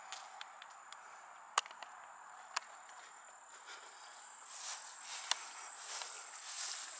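A thin, steady high-pitched insect trill throughout, broken by a few sharp clicks. From about four and a half seconds in come footsteps swishing through grass.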